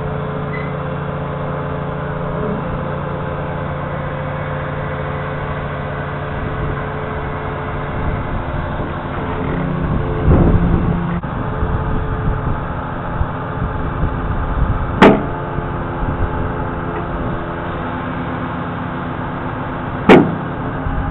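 Lorry engine running steadily to power the HIAB loader crane's hydraulics while the crane lifts and swings a bulk bag of sand, with a rougher, louder stretch about ten seconds in. Two sharp clicks come about five seconds apart in the second half.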